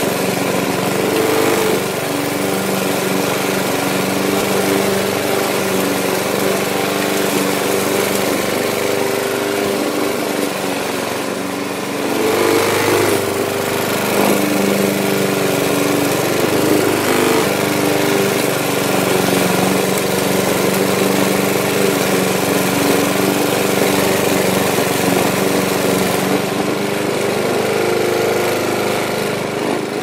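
Lawn mower engine running steadily with a droning hum, its level dipping slightly about ten seconds in and picking up again at about twelve seconds.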